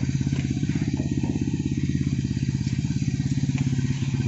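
Toyota Corolla 4A-F four-cylinder engine idling steadily, with an even, fast pulse.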